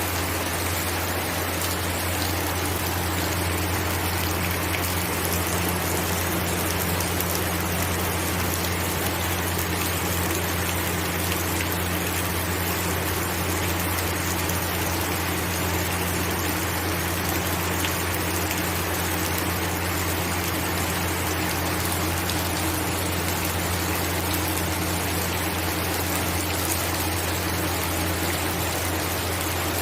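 Steady rain falling, an even hiss with no break, over a constant low hum.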